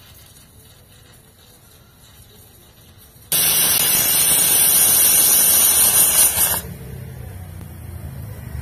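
Pressure cooker's weighted whistle valve venting steam on a wood fire: a loud hiss that starts abruptly about three seconds in, holds for about three seconds and cuts off. The blast is the sign that the cooker has come up to pressure.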